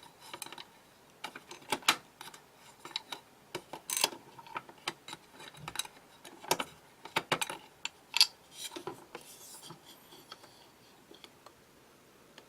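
Irregular mechanical clicks, taps and knocks from a Fike Halon discharge station being opened and handled, with several sharper knocks in the middle and fewer near the end.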